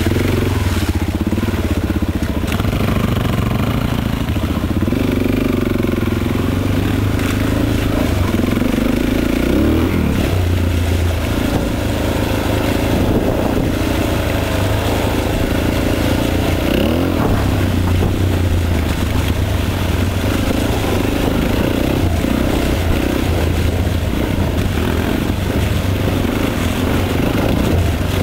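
Four-stroke single-cylinder dirt bike engine running close to the microphone while riding, its pitch rising and falling repeatedly as the throttle is opened and eased off.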